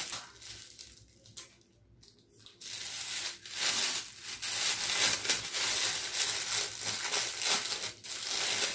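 Clear plastic bubble wrap crinkling and rustling as it is unwrapped from a camera by hand. It is faint for the first two seconds or so, then much louder from about two and a half seconds in.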